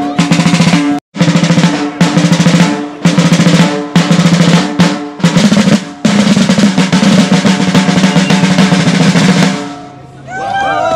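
Several rope-tensioned marching drums played with wooden sticks: rapid rolls and beats in a steady rhythm, with a brief break about a second in. The drumming stops near the end, giving way to voices.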